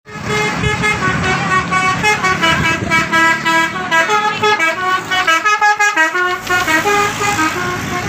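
Basuri multi-tone 'telolet' bus horn playing a rapid melody of short, chord-like notes from a passing tour bus.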